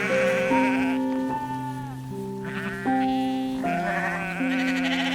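Goat bleating several times over background music with held notes.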